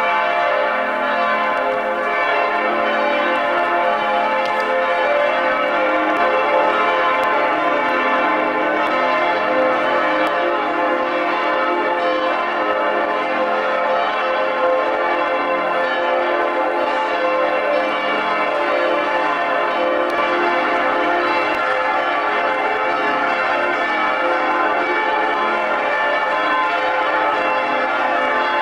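Several large church bells pealing together in a continuous, steady ringing.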